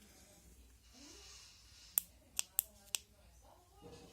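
Four sharp clicks in the second half, close together, with a faint voice in the background.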